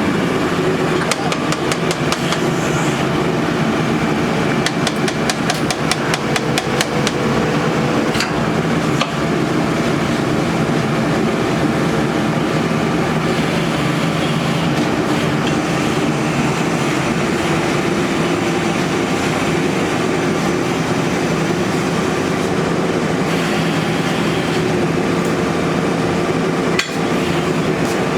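Borehole drilling rig's engine running steadily under load, with a quick run of sharp knocks, several a second, during the first several seconds.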